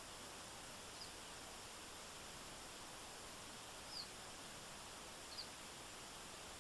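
Steady hiss of a flowing stream, with three brief high bird chirps about a second in, around four seconds in, and near the end.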